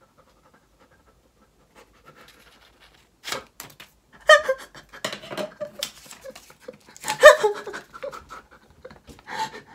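A man's breathy, excited laughter in repeated bursts, starting about three seconds in and loudest around the middle. Before it, faint snips of small scissors cutting through paper.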